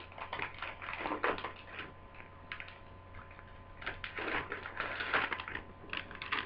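Packaging rustling and crinkling as a new replacement laptop screen panel is unwrapped and handled. The sound comes in irregular crackly bursts, with a quieter stretch in the middle.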